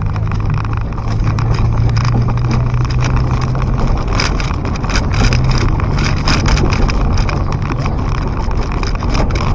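Car driving on a rough unpaved dirt road, heard from inside the car: a steady engine drone with frequent knocks and rattles as it goes over the bumps.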